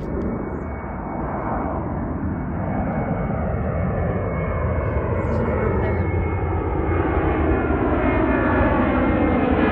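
Airbus A330-200 twin-engine jet climbing out overhead after take-off: steady jet engine noise with tones that slide slowly in pitch, growing gradually louder.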